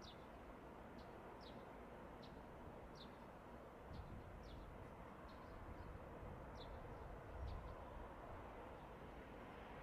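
Faint bird chirping: short, high, falling chirps repeated irregularly, about one or two a second, over a quiet low background rumble.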